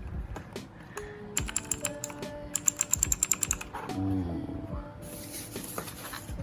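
Keys of a Leaven K620 keyboard being pressed in two quick runs of rapid clicking in the middle, over background music.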